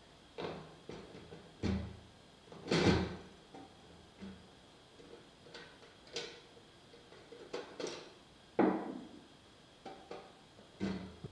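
Portable cartridge gas camping stove being handled and fitted into its hard plastic carrying case: a series of clunks and clatters of metal on plastic, loudest about three seconds in and again near nine seconds.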